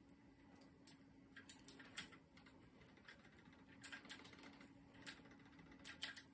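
Faint, irregular clicking of knitting needles tapping together as stitches are worked, over a faint steady hum.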